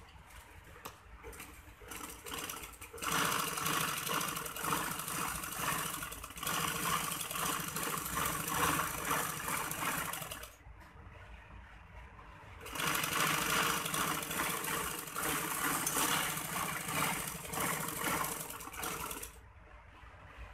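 Sewing machine stitching cotton fabric with a fast, even clatter, in two runs of about seven seconds each. Between the runs there is a short pause while the cloth is handled.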